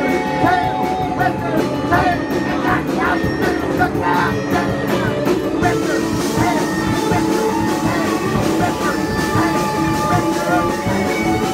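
A live punk band playing loud in a small bar, with drums, bass, electric guitar and banjo. The first half carries a steady drum pulse under wavering melodic lines, and about halfway through the drumming opens up into a denser cymbal wash.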